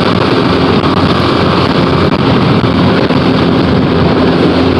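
Tohatsu outboard motor running steadily at speed, driving a small boat on plane, with wind buffeting the microphone.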